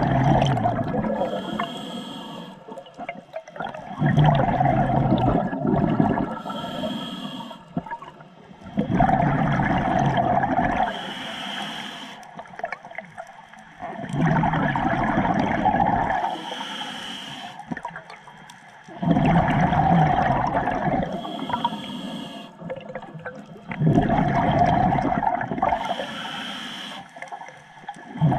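Scuba diver breathing through a regulator underwater: a rush of exhaled bubbles and a short hissing inhale, repeating steadily about every five seconds, about six breaths in all.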